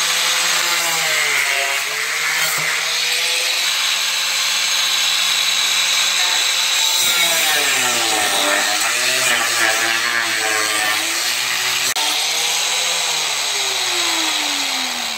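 Corded angle grinder cutting into the plastic lip of a radiator fan shroud, its motor whine dipping and recovering as the disc bites into and eases off the plastic. Near the end the pitch falls steadily as the grinder is switched off and spins down.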